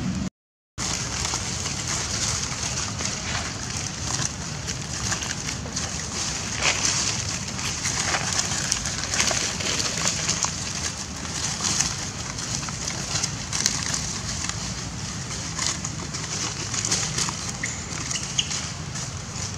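Outdoor ambience of a steady high hiss, full of frequent short crackles and clicks from macaques moving over dry fallen leaves. The sound drops out briefly just after the start.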